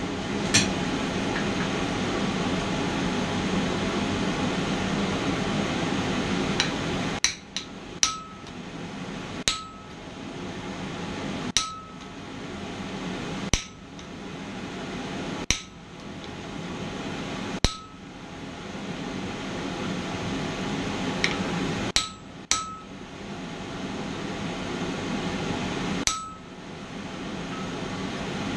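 Blacksmith's hand hammer striking a top tool on hot mild steel to set a decorative line. The blows come singly about every two seconds, a few in quick pairs, each with a short metallic ring, over a steady rushing noise.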